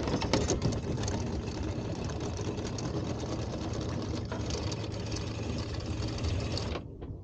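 Electric anchor windlass running with a rapid rattle over a steady motor hum, cutting off suddenly near the end.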